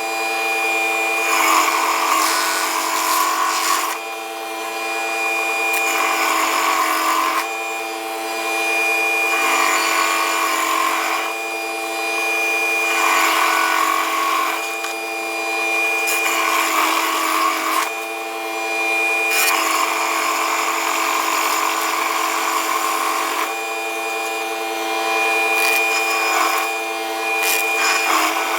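Woodland Mills WG24 tractor-driven stump grinder running at steady speed with a high whine, its cutter wheel chewing into a stump in repeated passes. The rough grinding noise swells and eases every two to four seconds as the wheel is swept across the wood.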